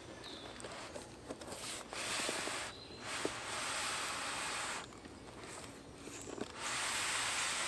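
Foam-packed griddle being slid out of its cardboard shipping box: foam and cardboard scraping against each other in three scraping strokes, a short one about two seconds in, then two longer ones of nearly two seconds each.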